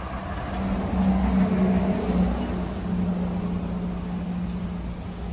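Street traffic: a vehicle engine running steadily close by over a low road rumble, growing louder between about one and three seconds in as traffic moves past.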